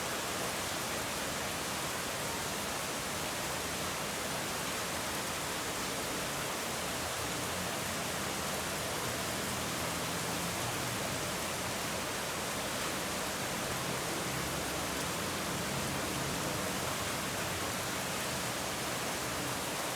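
Steady, even rain with no individual drops or other sounds standing out.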